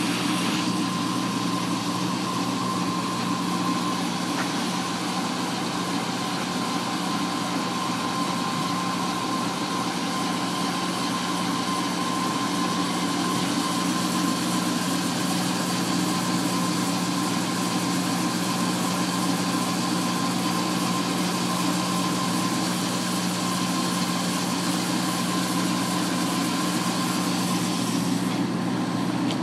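Dazzini S625EGT wire saw running steadily through a cut: a continuous machine drone with a steady low hum and a thin, steady high whine.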